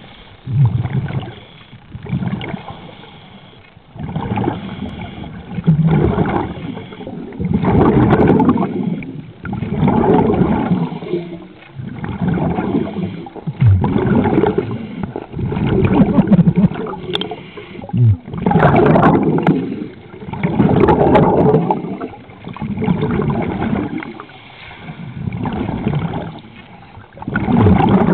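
Scuba diver breathing through a regulator underwater: the inhale through the regulator and the rush of exhaled bubbles, in a steady rhythm of about one surge every two seconds.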